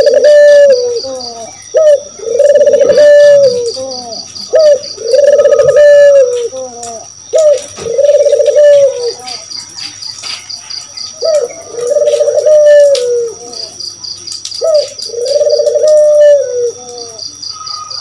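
Ringneck doves (burung puter) cooing: about six long, level coos, each opening with a short rising note, coming every two seconds or so with a longer pause midway. A rapid, high pulsed chirping and a steady high whine run faintly behind.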